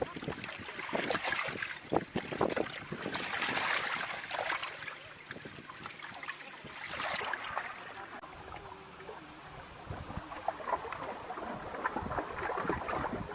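Wind gusting over the microphone in waves of louder and softer noise, with water lapping and scattered small knocks.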